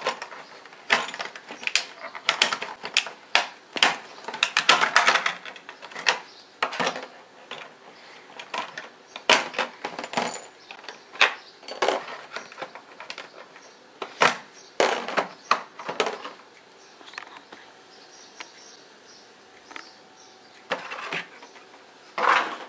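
Small Beyblade parts clicking and clattering as they are pulled from a packaging tray and set down on a plastic Beyblade stadium floor. The clicks come at irregular intervals, thickest in the first few seconds and sparser after, with a louder cluster near the end.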